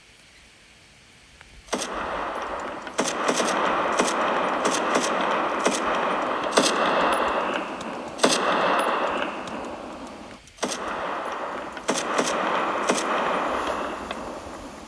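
Long bursts of rapid machine-gun fire, starting about two seconds in, with a short break about ten and a half seconds in.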